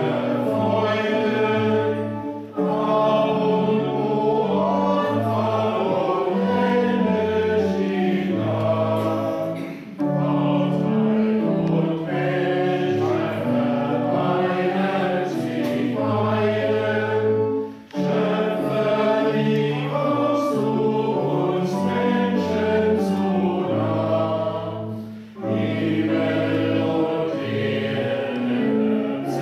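Church congregation singing a hymn to church organ accompaniment, in long held notes, with brief breaks between the lines about every seven to eight seconds.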